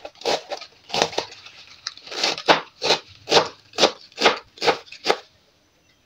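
A kitchen knife slices napa cabbage into thin strips on a plastic cutting board, in a steady run of chopping strokes about two a second. The strokes stop near the end.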